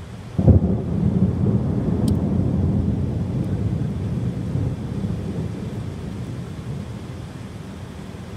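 Thunderclap about half a second in: a sudden crack that rolls into a low rumble, fading over several seconds, over steady heavy rain.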